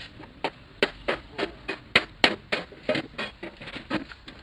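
Hand hammer striking sheet steel in quick, uneven blows, about three to four a second, beating a repair patch into shape by hand.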